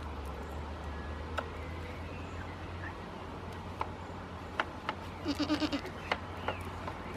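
A goat bleats once, a short wavering bleat a little past the middle, over a steady low hum and scattered light clicks.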